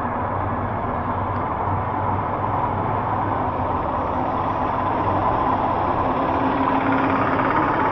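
Steady vehicle engine hum with road noise.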